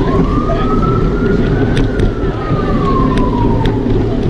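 An emergency vehicle's siren wailing, rising slowly in pitch and then falling back, with the next rise starting near the end. It sounds over steady low street noise with a few sharp clicks.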